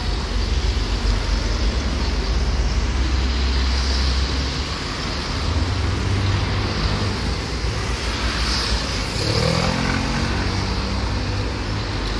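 Steady road traffic noise with a low rumble, and a motor vehicle's engine coming up and rising in pitch about eight to nine seconds in.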